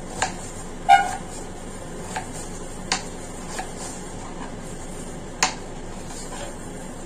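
Irregular knocks and clicks of a kitchen knife and hands working on a chopping board, about six in all. The loudest is a clink with a brief ring about a second in. A faint steady hiss lies underneath.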